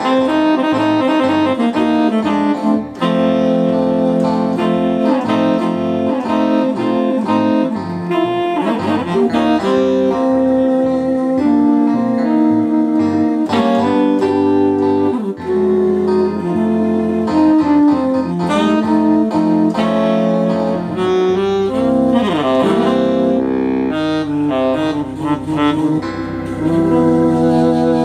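Electronic keyboard playing a melody in a saxophone-like voice over sustained chords, with a few bent notes. A steady low bass line comes in about three-quarters of the way through.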